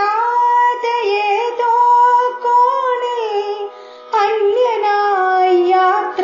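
A woman singing a slow, ornamented melody in long gliding phrases, with a short pause between phrases about four seconds in.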